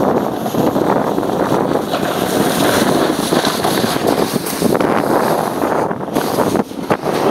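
Wind rushing over the microphone as the camera moves across a snow slope, a steady loud noise that dips briefly near the end.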